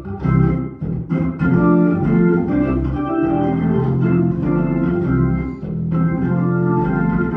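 Organ, with the sound of a Hammond-type organ, playing the introduction to a praise song, with chords held steady after a few choppy stops and starts in the first second.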